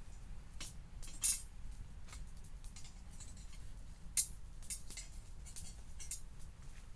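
Campfire crackling, with irregular sharp pops from the burning wood, two louder snaps standing out, over a low steady rumble.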